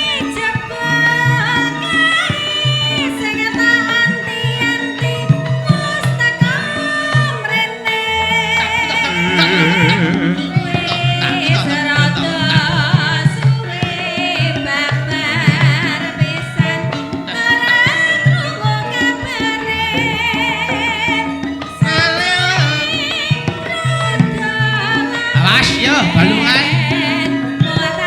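Live Javanese band music from a wayang kulit show's limbukan interlude, a mostly instrumental passage: a steady drum beat under high melody lines that waver with vibrato in repeated phrases.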